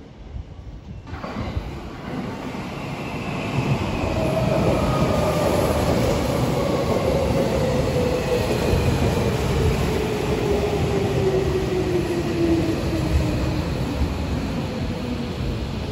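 Tokyo Metro commuter train pulling into the platform and braking. The rumble of its wheels builds quickly, and its traction motors whine in a pitch that falls steadily as the train slows almost to a stop.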